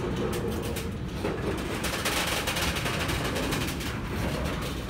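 Freight wagons loaded with tank containers rolling slowly on the rails: a steady low rumble of wheels, with rapid knocks and clanks from the wheels and couplings.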